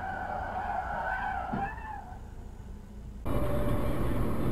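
Car tyres squealing in a skid, a wavering high screech lasting about two seconds. Just past three seconds it gives way to louder, steady road and engine noise of a car driving.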